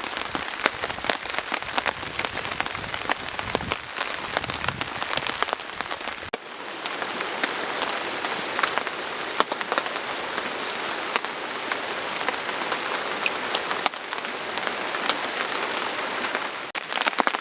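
Heavy rain falling steadily, a dense patter of many separate drop hits on a surface. About six seconds in the sound shifts and the low rumble beneath the patter drops away.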